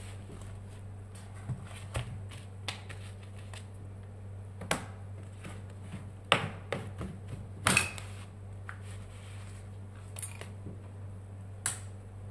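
Scattered light knocks and taps of a Samsung Galaxy Tab 2 10.1 tablet's casing being handled and turned over on a workbench, the loudest two about six and eight seconds in, over a steady low hum.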